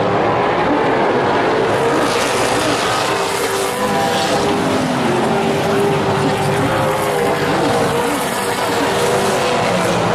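Super Late Model stock cars' V8 engines at full race pace on a paved oval. Several engine notes rise and fall as the cars run side by side through the turn and onto the straight.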